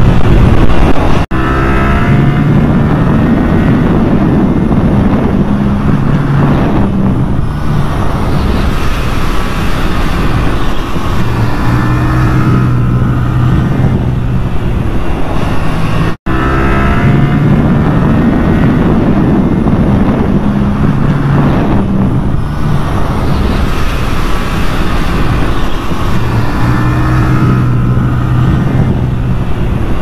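Yamaha YZF-R7's parallel-twin engine heard from on board at speed, its revs rising and falling as it is ridden hard. The sound drops out for an instant twice, about a second in and about halfway through.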